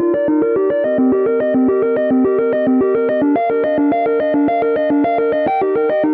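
An Apple iPhone ringtone playing: a fast synthesized arpeggio of short, evenly spaced keyboard-like notes, about eight a second.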